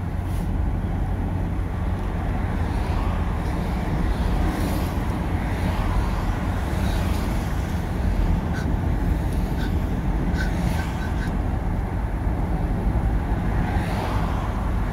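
Steady low rumble of a car being driven, heard from inside the cabin: engine and road noise at cruising speed.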